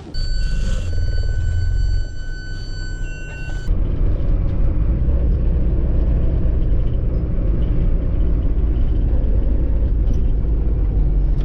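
Vehicle on the move, a steady low rumble of engine and road noise. For the first few seconds some thin steady high tones sit over it, then the sound changes abruptly to an unbroken rumble.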